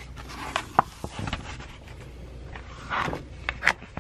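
A sheet of holographic adhesive vinyl on a sticky cutting mat being handled at a vinyl cutter: irregular crinkling and rustling with small sharp clicks and knocks. It comes in two busier spells, about a second in and again around three seconds in.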